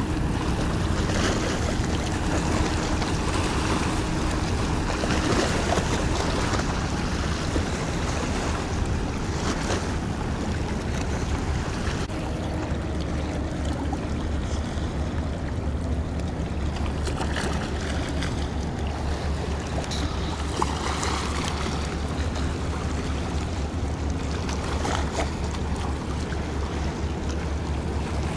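Steady wind buffeting the microphone, with a low rumble, over sea waves washing against a stone breakwater.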